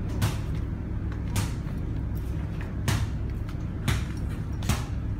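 Five sharp knocks at uneven gaps of about a second, over a steady low hum.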